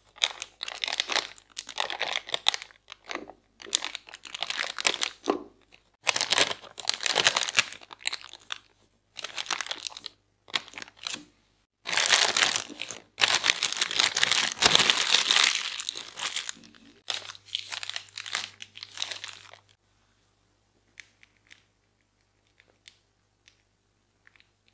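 A thin plastic piping bag crinkling and rustling in repeated bursts as it is handled and filled with a mashed-potato dough, loudest a little past the middle. The crinkling stops several seconds before the end, leaving only a few faint ticks.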